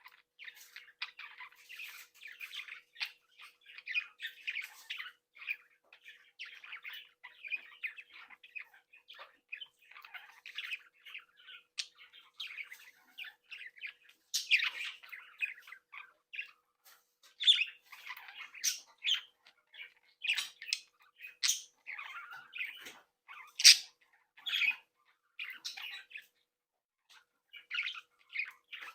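Young budgerigars chattering and chirping without pause, a busy warble broken by sharper, louder squawks and calls, which grow louder and more frequent from about halfway.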